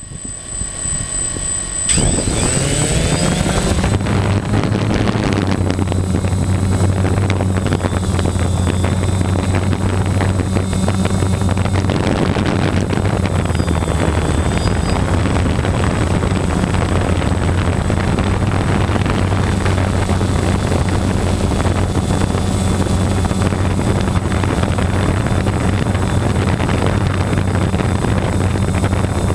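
Multirotor camera drone's motors and propellers spinning up with a rising whine about two seconds in, then a steady buzzing hum as it climbs and flies, recorded by the drone's own camera.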